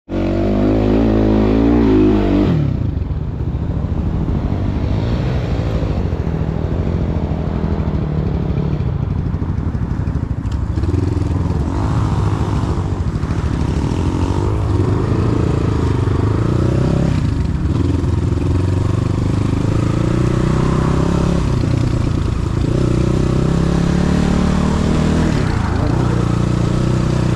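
A vehicle engine running under way. It revs up over the first couple of seconds, then carries on steadily with its pitch rising and falling a little.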